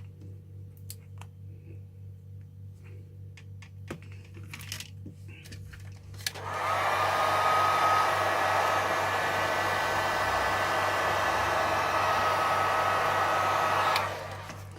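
A few light clicks, then about six seconds in a hot-air heat gun switches on and blows steadily with a thin high whine, cutting off abruptly about a second before the end. It is heating a phone's back glass to soften the adhesive.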